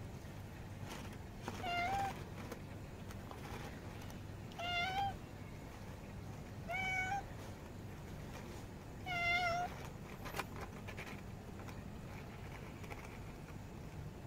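Orange tabby cat meowing four times, short calls about two to three seconds apart in the first ten seconds, then falling silent.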